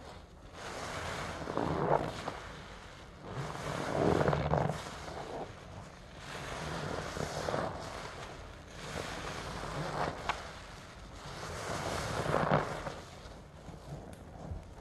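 Large yellow sponges soaked in a foamy Pine-Sol and Fabuloso lather, squeezed and kneaded by gloved hands in a basin: wet squelching and crackling foam, in about five swells a few seconds apart.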